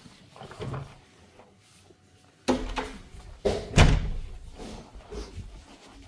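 A door opening and banging shut: a heavy thud about two and a half seconds in and a louder bang just before four seconds in, with smaller knocks and rubbing from the camera being carried.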